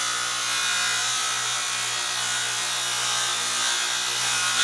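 Old electric power saw running steadily with an even motor hum while cutting cork flooring. It is straining to push through the cut: the saw keeps stalling at this point and is smoking, which the owner puts down to the saw being old and worn.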